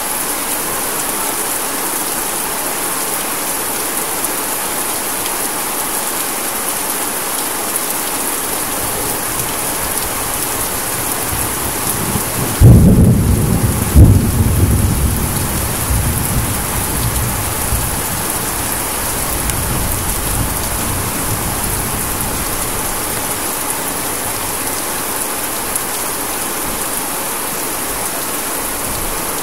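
Heavy rain falling steadily on trees and leaves. About twelve seconds in, a loud clap of thunder, with a second crack just after, rumbles on and dies away over several seconds.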